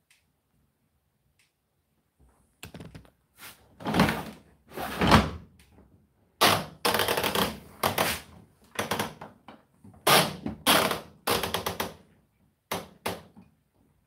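Near silence at first, then a run of irregular thuds and knocks, about a dozen in ten seconds, some short and some longer and scraping.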